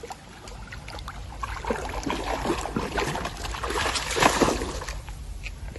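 Water splashing and sloshing as a cocker spaniel wades through a shallow stream, the splashing growing busier and louder about a second and a half in.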